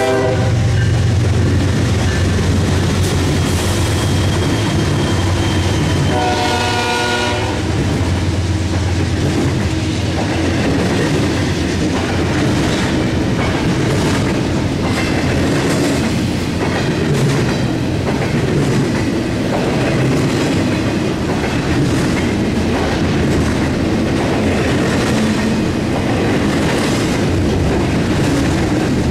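Norfolk Southern GE ES40DC diesel locomotive passing with its engine running loud and low, then a multi-note horn sounding for about a second and a half roughly a quarter of the way in. After that come the double-stack intermodal container cars rolling by steadily, their wheels clicking over the rail joints.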